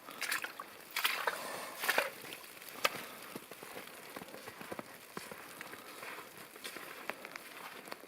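Footsteps sloshing through wet, waterlogged bog ground, with small crackles and clicks. A few louder steps in the first three seconds, then quieter.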